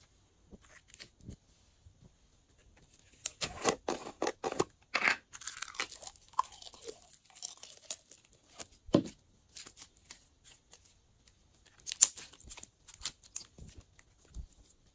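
Glossy slime being worked by hand, giving off sticky crackles, clicks and squishy pops in uneven clusters. The busiest stretch comes about four seconds in, with further bursts near nine and twelve seconds.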